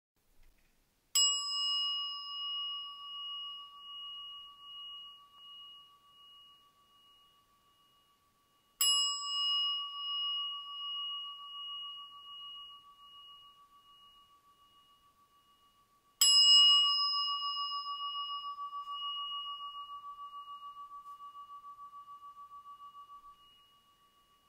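A meditation bell struck three times, about seven seconds apart. Each strike rings out for several seconds with a pulsing wobble as it fades. It is the chime that opens a guided meditation practice.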